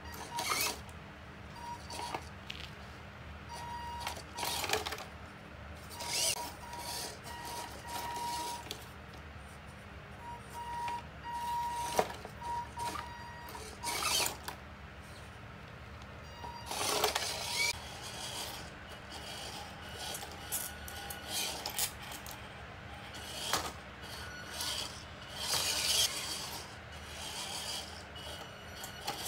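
Electric motor and gearbox of a 1/16 scale WPL RC crawler whirring in many short stop-start bursts as it climbs on and off a stack of weight plates.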